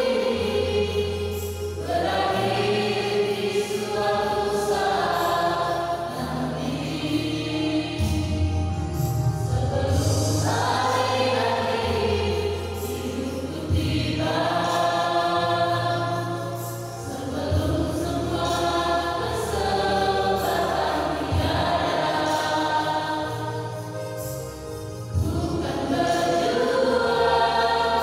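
Mixed choir of young men and women singing a gospel hymn in several parts, phrases swelling and easing every few seconds over low sustained notes underneath.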